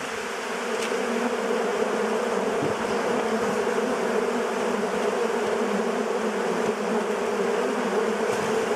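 Swarm of honeybees buzzing steadily close around the beekeeper, a dense, continuous hum of many bees at once.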